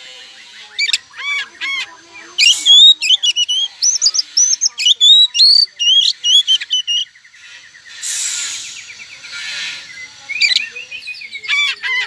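Oriental magpie-robin (white-breasted kacer) singing a loud, varied song: quick whistled phrases, a fast rattling trill midway, and two harsh rasping notes after it.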